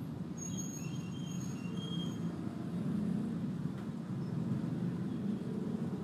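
Steady low rumble of background noise, with a few faint short high-pitched tones in the first two seconds.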